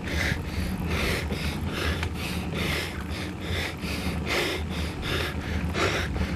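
A cyclist breathing hard and rhythmically while climbing a long hill, about two breaths a second, over steady low wind and road rumble.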